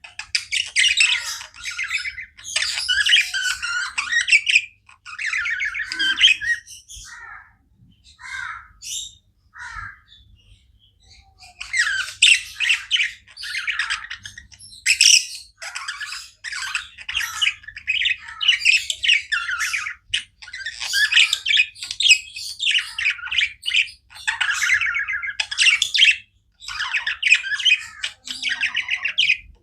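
Budgerigars chirping and chattering in rapid, busy runs of squawks and warbles, thinning to scattered single chirps for a few seconds about a quarter of the way in before turning dense again.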